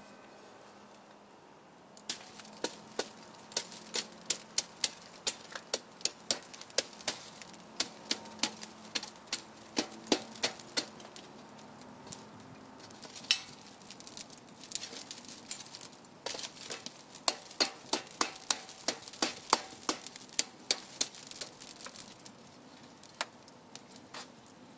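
Oak wood fire crackling: irregular sharp pops and snaps, several a second, over a faint hiss. They start about two seconds in and ease off briefly midway.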